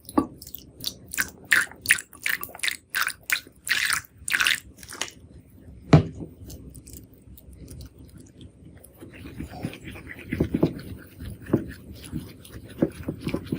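Homemade shampoo slime being mixed and handled: a quick run of short scraping, squishing strokes, one sharp click about six seconds in, then softer, denser squishing and crackling from about nine seconds on.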